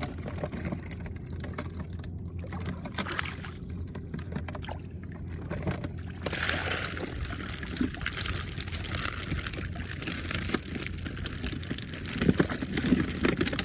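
Water sloshing and splashing, getting louder and hissier about six seconds in.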